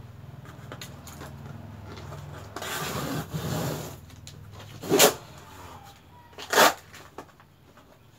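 Cardboard box being opened after its tape is cut with scissors: cardboard and tape rustling about three seconds in, then two sharp knocks on the box about a second and a half apart. A low steady hum runs under the first half and then fades.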